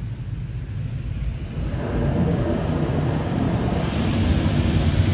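High-pressure water jets of a WashWorld Razor touch-free automatic car wash spraying the car, heard from inside the cabin as a steady low rush of noise. It grows louder about two seconds in, and a hiss comes in near the end as the spray sweeps closer.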